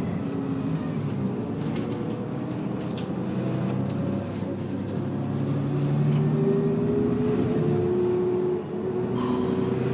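Bus engine and drivetrain running, the hum rising slowly in pitch over the second half as the bus picks up speed, with brief hisses about two seconds in and near the end.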